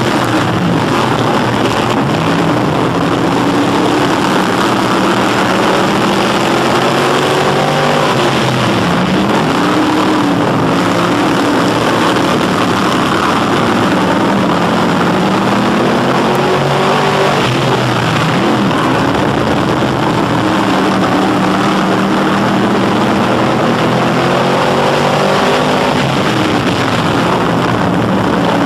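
Crate Sportsman dirt-track race car's crate V8 running hard at racing speed, heard close up from a bumper-mounted camera. The engine note rises and falls over and over as the driver accelerates down the straights and lifts for the turns.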